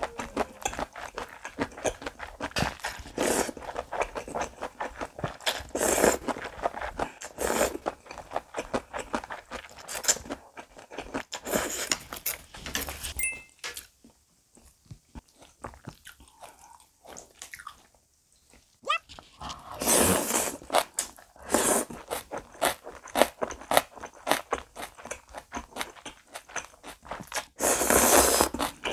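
Close-miked eating sounds: buckwheat cold noodles slurped in short bursts, with chewing and crunching of the noodles, pork galbi and radish in between. A quieter stretch of soft chewing falls about halfway through.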